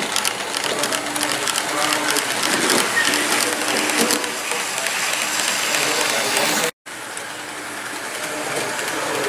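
Model freight train of hopper wagons running past on a model railway track: a rapid clicking clatter of small wheels over the rails and joints, easing to a steadier rolling noise. The sound cuts out for a moment about seven seconds in.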